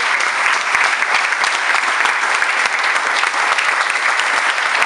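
Small seated audience applauding, a steady dense clapping that holds at one level.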